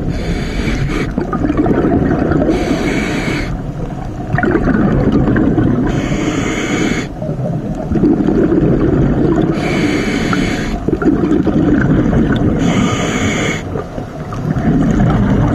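Scuba diver breathing through a regulator underwater: a short hiss with each breath, about every three to four seconds, over a constant low rumble.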